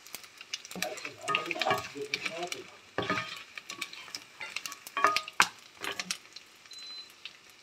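Small dried anchovies (bolinao daing) sizzling as they fry in hot oil in a nonstick pan. A spatula stirs them, scraping and tapping against the pan many times.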